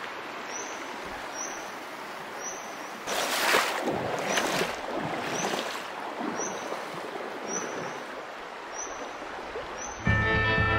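River water rushing in a shallow canyon stream, with two louder swells of splashing and sloshing about three and a half and four and a half seconds in. A faint short high chirp repeats about once a second.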